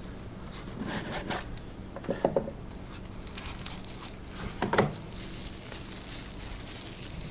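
A flashlight's cardboard box and packaging being handled and opened: three short bursts of rubbing, sliding and tapping, the loudest near the end, over a steady low hum.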